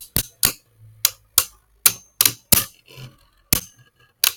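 Two Beyblade Burst spinning tops, Kerbeus and Horusood, clashing in a plastic stadium: about ten sharp plastic clacks at uneven intervals as they knock into each other.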